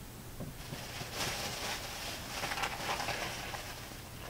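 Plastic bag and snack packaging crinkling and rustling as someone rummages through a bag of snacks, starting about half a second in.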